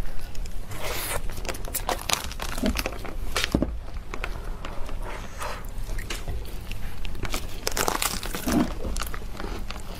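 Whole durian being pulled apart by hand: irregular crackling and tearing of the spiky husk and its fibrous white lining, heard close up.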